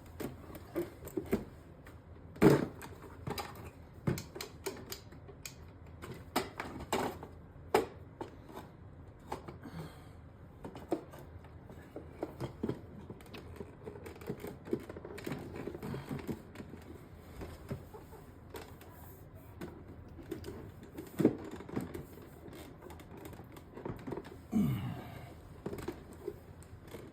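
Irregular clicks, taps and the odd louder knock of plastic parts being handled and fitted in a Samsung fridge's water dispenser lever assembly.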